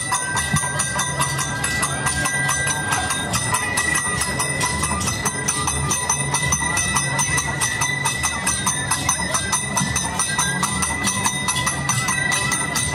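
Live folk-dance percussion: a hand drum with jingling metal percussion keeping a fast, even beat, with a steady high ringing tone over it.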